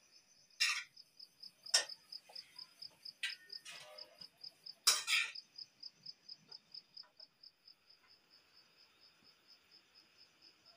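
A cricket chirping steadily in high, even pulses, about four a second. In the first half come several short scrapes and clinks of a spatula against a frying pan and steel plate as pasta is served.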